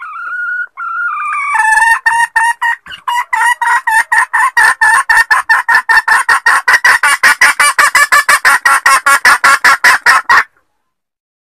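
Junglefowl hen's mating-solicitation call, played as a bird-trapping lure. It opens with a drawn-out, slightly rising note, then becomes a long run of rapid clucks at about five a second. The run stops abruptly about a second before the end.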